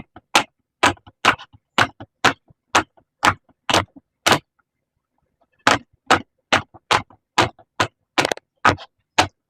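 Silicone pop-it fidget toy being popped bubble by bubble: a steady run of sharp pops, about two a second, with a short pause midway before the popping carries on.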